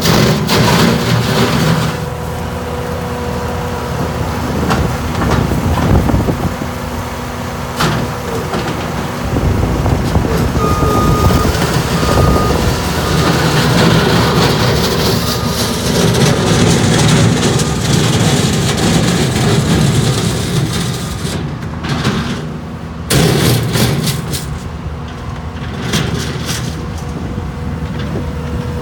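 Bobcat S630 skid-steer loader's diesel engine running, its level rising and falling as the machine works. A few short high beeps sound around the middle.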